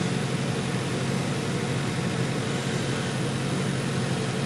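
Steady hiss and rumble of a stainless steel pot of water heating on a gas hob, just starting to bubble.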